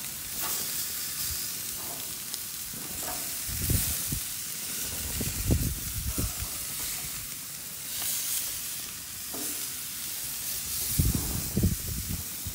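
Pork chops sizzling on a grill over open flame, a steady hiss, with a few light clicks of metal tongs on the grate. Short low rumbles come and go a few times.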